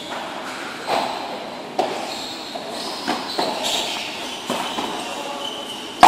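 A padel ball bounced a few times on the court surface, sharp knocks about a second apart that echo in a large covered hall. At the very end comes one much louder, sharper crack of the paddle striking the ball on the serve.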